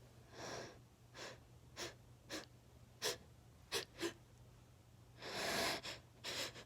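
A woman's hitching, gasping breaths as an itchy allergy sneeze builds up: a string of short, sharp breaths, then a longer, louder intake of breath about five seconds in.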